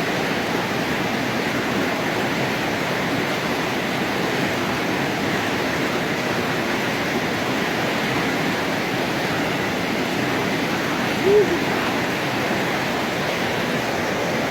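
Steady rush of whitewater from a river rapid, an even noise with no breaks. A brief voice-like cry stands out about eleven seconds in.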